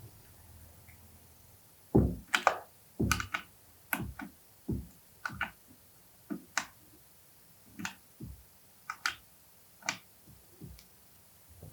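Irregular sharp clicks and knocks from hands and a hex key working a timber door's 3D hinge, as the door is lifted and the height-adjusting screws are tightened again. There are about fifteen in all, the loudest a cluster around two to three seconds in.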